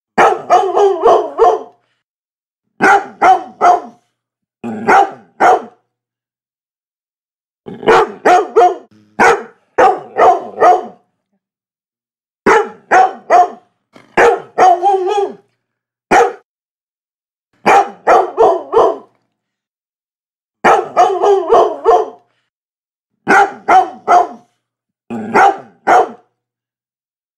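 A Labrador barking in quick runs of two to five sharp barks, with short silent pauses of about a second between runs.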